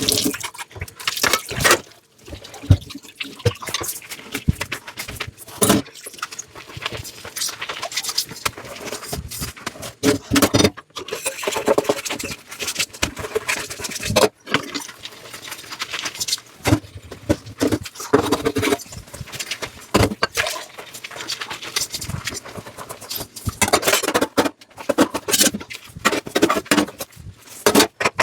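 Dishes being washed by hand at a sink: running water splashing, with dishes and cutlery clinking and clattering against each other.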